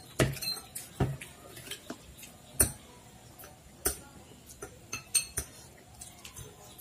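Metal forks clinking and scraping against bowls as noodles are eaten, in scattered, irregular sharp clinks.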